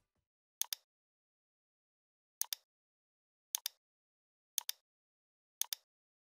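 Computer mouse clicked five times, each click a quick pair of sharp ticks, with dead silence between them.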